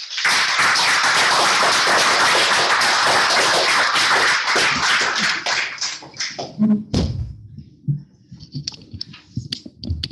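Applause from a small audience, dying away after about five seconds. It is followed by a heavy thump and scattered knocks and rustles from the camera being handled and moved.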